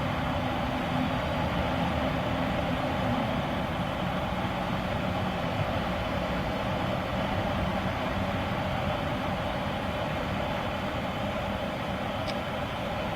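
BNSF double-stack intermodal freight train passing: a steady, continuous running noise of the train on the track, with a low engine tone in the first few seconds.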